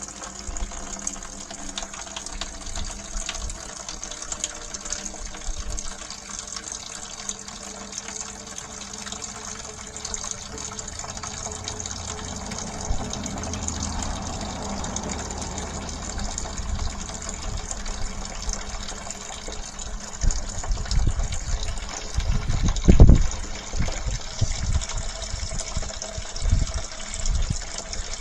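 Toilet flush water gushing out of the sewer inlet pipe into a septic wet well, a steady rush of water. Wind buffets the microphone with low thumps in the second half.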